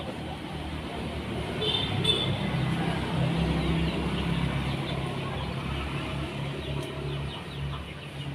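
A motor vehicle's engine running with a steady low hum that grows louder about two seconds in and then holds. A bird chirps briefly as it swells.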